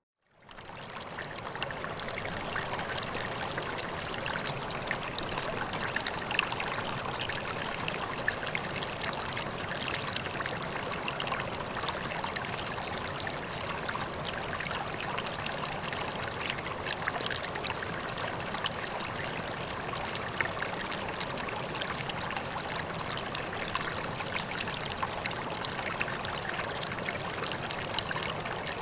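Water steadily trickling and splashing into a koi pond, with small splashes flecking the steady rush. It fades in just after a brief silence at the very start.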